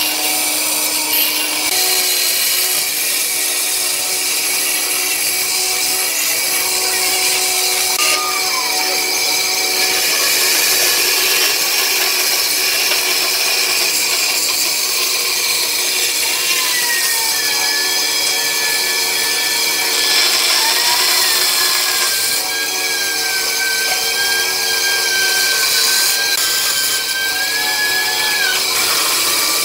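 Bandsaw running and cutting a thick softwood board along curved lines: a steady hiss of the blade through the wood over the machine's hum. A thin whine that wavers in pitch comes in about halfway through.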